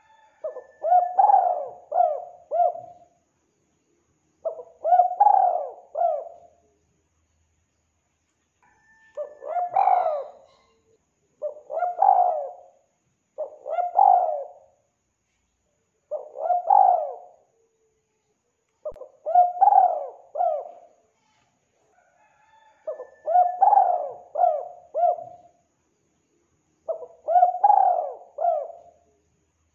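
Spotted dove cooing: about nine repeated phrases, each of three or four soft coos, with short pauses between them.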